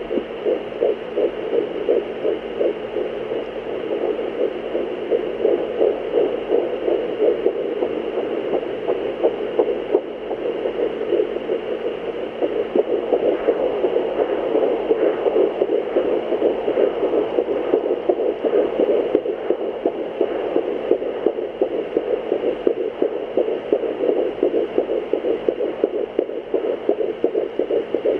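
Fetal heartbeat through a fetal Doppler's speaker: a rapid, even whooshing pulse over a steady hum.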